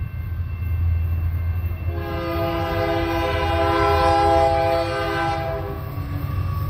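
Union Pacific diesel locomotive's air horn sounding one long multi-note blast, starting about two seconds in and cutting off near the end, as the ballast train approaches. A steady low rumble runs underneath.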